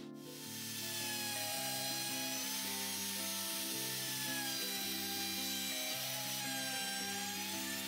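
Handheld electric router whining as it cuts a rabbet along the edge of a wooden board, its pitch wavering slightly under load, with background music playing over it.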